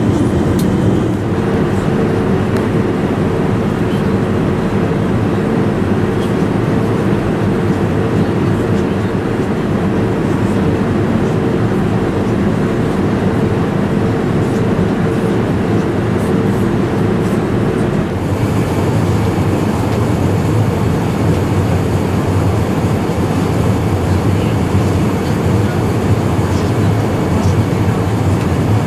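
Steady loud rumble and hiss of a moving vehicle heard from inside, with a steady hum that stops about two-thirds of the way through while the hiss grows brighter.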